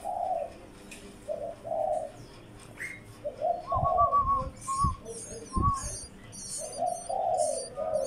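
Dove cooing in repeated low phrases, with high, rapid chirping of small birds joining from about halfway in. A few dull thumps in the middle.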